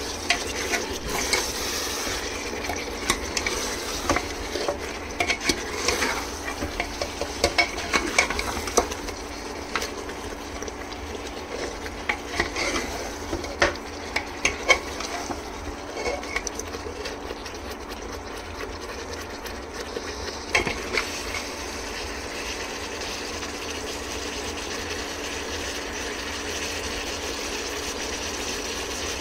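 Mutton frying in oil in a pot (the bhuna stage, fried until the oil separates), sizzling steadily. A spoon scrapes and clinks against the pot as the meat is stirred; the stirring stops about two-thirds of the way through, leaving only the sizzle.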